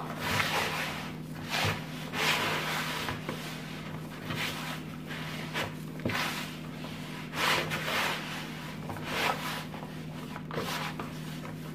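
Hands rubbing and kneading crumbly dough against a plastic basin: repeated rough swishing strokes, about one a second. The dough is still dry and crumbly, being worked until it comes together.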